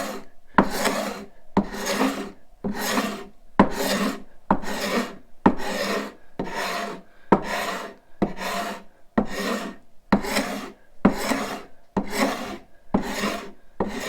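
A hand scraper with a hooked blade scraping a wooden board in repeated strokes, about one a second. Each stroke is a short rasping scrape that starts sharply, taking off shavings rather than dust.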